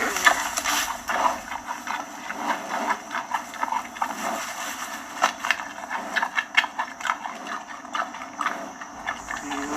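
Giant panda eating bamboo: irregular crunching and cracking of the stems, several sharp cracks a second.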